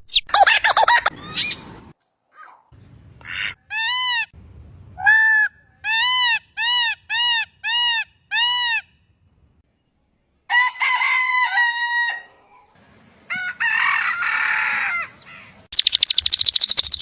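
A string of separate animal and bird calls, cut one after another, among them a rooster crowing. In the middle come six identical short, arched calls about half a second apart, and near the end a fast run of high chirps begins.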